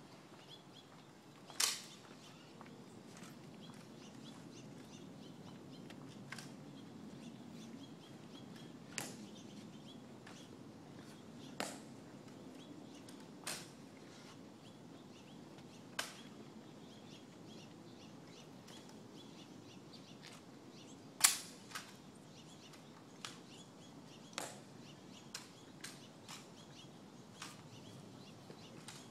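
Sharp, crisp clicks and snaps from honor-guard soldiers' ceremonial drill: rifle handling and heel clicks, about a dozen of them at irregular intervals. The loudest is about two-thirds of the way through, quickly followed by another, over a faint, hushed background.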